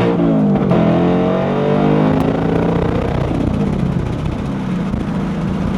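2024 Ford Mustang GT's 5.0-litre V8 with active exhaust, heard through the trunk while driving at highway speed: the engine note falls over the first couple of seconds, then settles into a steady drone.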